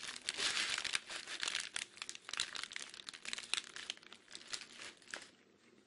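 Paper hamburger wrapper crinkling and tearing as it is unwrapped: a dense run of sharp crackles that stops about five seconds in.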